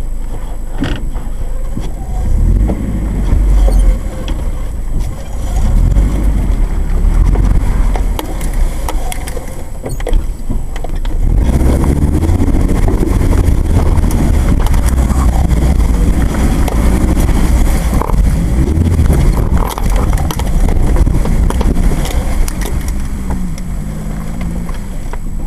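Off-road four-wheel-drive vehicle driving a rough forest dirt trail: a continuous low engine and drivetrain rumble, with frequent knocks and rattles from the body and suspension going over bumps.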